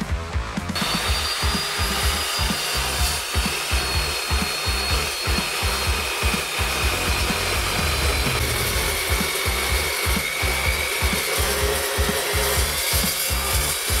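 Evolution 15-inch carbide-toothed metal-cutting chop saw cutting through a length of steel railroad rail: a steady, harsh grinding with a high whine whose pitch slowly falls. It starts abruptly about a second in.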